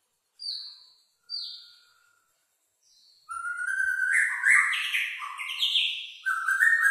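Black-tailed white-rumped shama (murai batu) giving two short calls, then about three seconds in starting a loud, continuous song of quick, varied whistled phrases.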